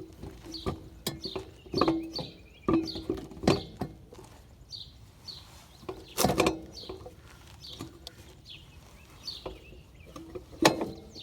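Metal tools knocking and clinking against the Harley Sportster's rear brake and wheel parts, with short ringing clanks; the loudest knocks come about six seconds in and near the end. A bird chirps repeatedly in the background.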